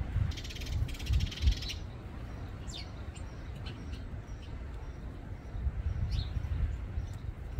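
Birds at a suet feeder: a burst of fast rattling in the first second and a half, then several short, falling chirps, over a steady low rumble.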